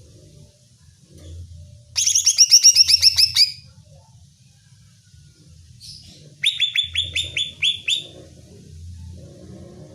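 Greater green leafbird (cucak ijo) calling: two loud, rapid trills of sharp falling notes, the first about two seconds in and the second a little past the middle, over a faint low hum.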